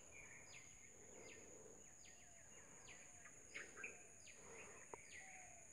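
Near silence: faint background with a steady high whine and soft high chirps that fall in pitch, repeating about every three quarters of a second.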